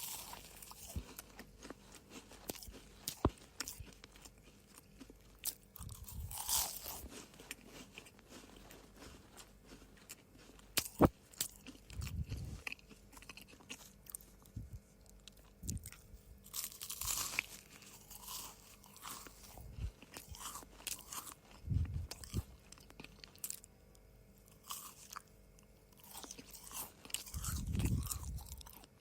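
Close-up crunching and chewing of dry cookies: irregular crisp snaps and crackles, with louder bouts of crunching every several seconds.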